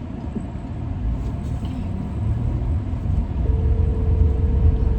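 Car driving, heard from inside the cabin: a steady low road and engine rumble. A single steady tone sounds for about two seconds near the end.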